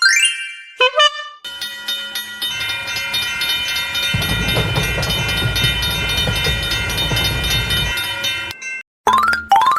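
Cartoon sound effects for an animated train: a few quick rising glides, then a long steady horn-like tone over a fast, even clatter, with a low rumble added from about four to eight seconds in. More quick rising glides come near the end.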